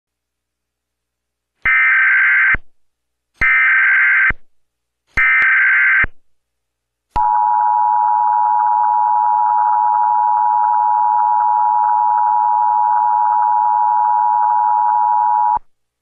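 Emergency Alert System header: three bursts of SAME digital data tones, about a second each, then the EAS two-tone attention signal, two steady tones sounded together for about eight seconds before it cuts off.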